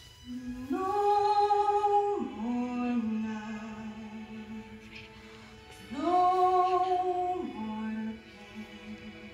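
A woman singing a slow song solo over a soft, sustained accompaniment. She sings two long phrases, each gliding up to a high held note and sliding back down, with a short pause between them.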